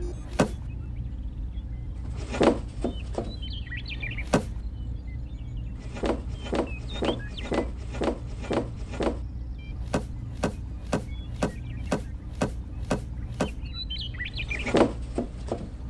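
A steady low hum with scattered clicks and taps over it. About ten seconds in comes a run of sharp, evenly spaced clicks, about two a second, and there are a few faint chirps.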